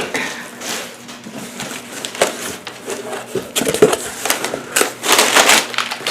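Cardboard shipping box being cut open with a dull knife: irregular scraping, crackling and tearing of packing tape and cardboard.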